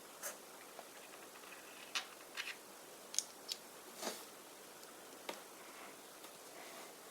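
Small plastic toy parts being handled: a string of about eight short, sharp clicks and brief rustles at irregular intervals over a faint steady hiss.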